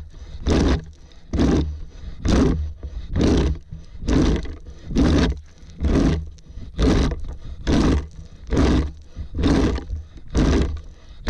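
A plastic rake dragged in steady repeated strokes through grass, scraping stones out of the lawn, about one stroke a second.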